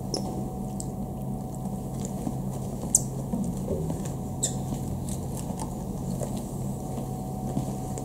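Flat mop being pushed across a glossy tile floor: a soft swishing with scattered short, sharp squeaks, over a steady low hum.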